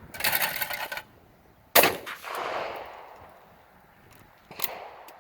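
.410 Baikal shotgun fired once at a thrown clay, about two seconds in, the shot echoing away over about a second. A short rushing noise comes just before the shot, and a smaller sharp click follows near the end.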